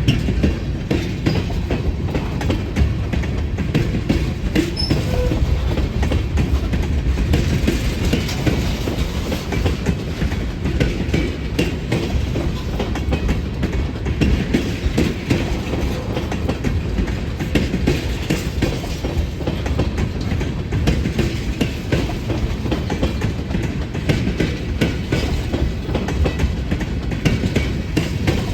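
Great Lakes Central Railroad train rolling past at close range: a steady low rumble with a fast, continuous clicking of wheels over the rail joints.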